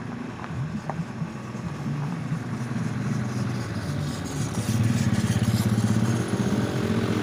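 A truck engine running as the truck rolls slowly closer, with a motorcycle engine passing close by, the loudest part with a fast pulsing sound about five to six seconds in.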